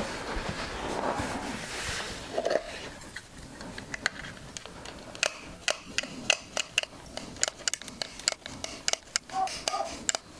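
Red hand-pump oil can being worked, its lever clicking a few times a second, irregularly, as oil is squirted into a motorcycle engine's oil feed during an oil refill.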